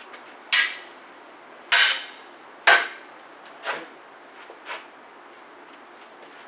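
Steel fencing sabre blades clashing as the fencers engage in second: three loud metallic clashes about a second apart, each ringing briefly, then two lighter taps.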